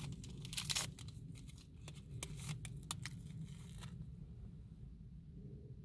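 Paper tea-bag wrapper being torn open and crinkled: a run of short rips and crackles over the first four seconds, then it stops.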